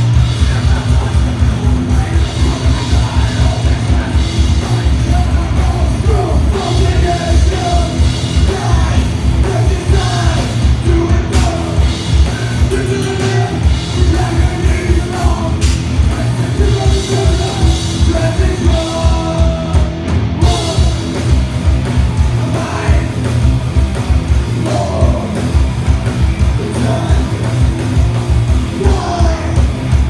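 Live band playing a song: a vocalist singing and shouting over electric guitar, bass guitar and a fast drum beat.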